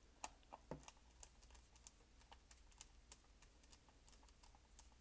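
Faint small clicks and ticks of a screwdriver working T6 Torx screws out of the plastic back of a TI-83 Plus calculator, a few a second, with a couple of louder clicks in the first second.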